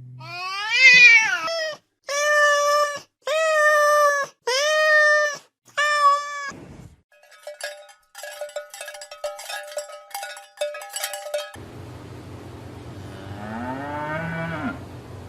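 Domestic cat meowing five times: a drawn-out meow that rises and falls, then four shorter, even meows. A quick run of clicks and chirps follows, and near the end a fainter rising-and-falling animal call over a steady low hum.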